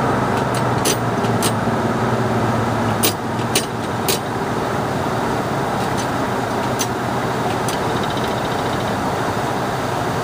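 Steady cockpit noise of an MD-80 airliner in the climb after takeoff: rushing airflow and the drone of its rear-mounted engines, with a low hum that eases about three seconds in. A scatter of sharp clicks runs through the first seven or eight seconds.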